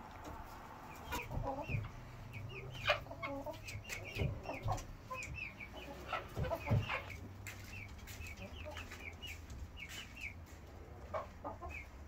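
Mapuche hens clucking on their roost, with many short high chirps throughout. Louder clucks and sharp knocks come about three, four and seven seconds in.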